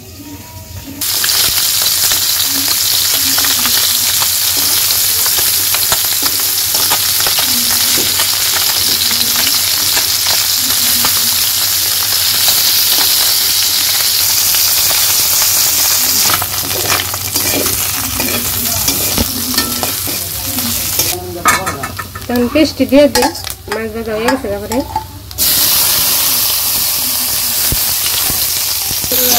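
Small freshwater fish frying in hot oil in an aluminium karahi: a steady sizzle, with a metal spatula stirring and scraping in the pan. About twenty-one seconds in, the sizzle drops away for about four seconds, then comes back.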